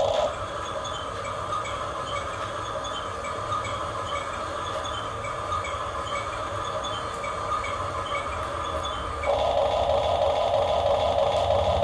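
Small electric motors and plastic gearboxes of a radio-controlled excavator and dump truck whining steadily, with a fine ticking of gear teeth. About nine seconds in, a second, louder motor whine joins as another function is driven.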